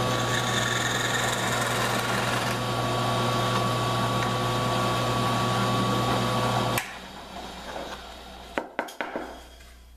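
Drill press motor running steadily while it bores a dowel hole in a plywood rib, then switched off and cutting out abruptly about seven seconds in. A few sharp knocks follow as the workpiece is handled.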